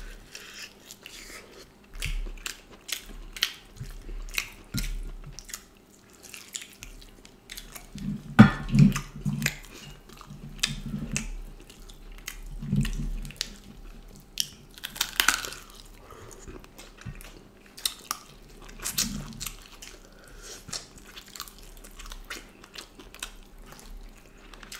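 Close-up mouth sounds of eating duck curry by hand: wet chewing, lip smacks and biting in an irregular stream of short clicks, with a few louder bites or crunches along the way.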